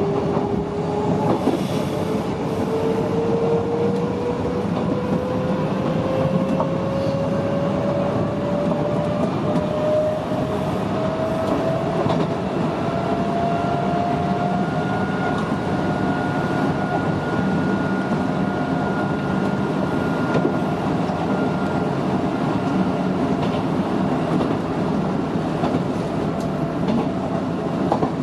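Kintetsu electric commuter train heard from the driver's cab as it gathers speed: the traction motors whine in a slowly rising pitch over the steady rumble of the wheels on the rails. A second, higher whine joins about halfway through and fades out a few seconds later.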